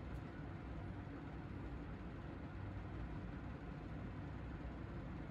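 Faint, steady low background rumble with no distinct events.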